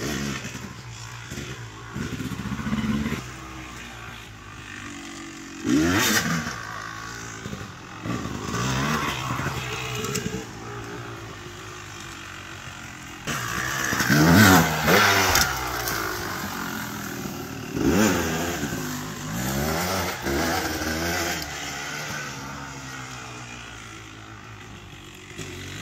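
Honda CR250 two-stroke dirt bike riding laps, the engine's pitch repeatedly climbing and falling as the throttle is opened and closed, with several loud revving bursts.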